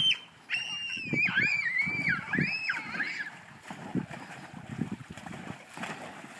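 A child's high-pitched squeal, a short cry and then a long wavering one of about three seconds, with water splashing and sloshing in an inflatable paddling pool.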